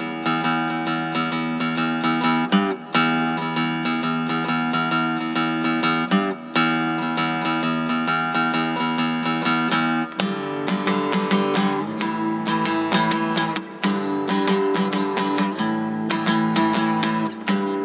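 Background music of a strummed guitar, changing to a lower, more rhythmic part about ten seconds in.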